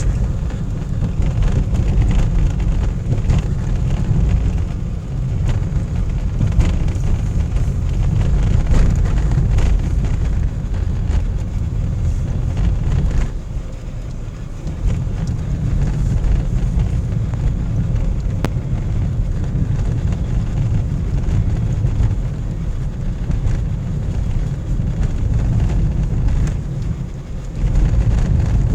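Car driving on a snowy winter road: a steady low rumble of engine and tyres that eases briefly about halfway through.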